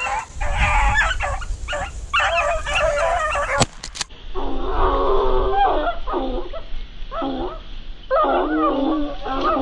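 A pack of rabbit hounds baying in repeated bursts as they run a rabbit's track, with a brief click about four seconds in.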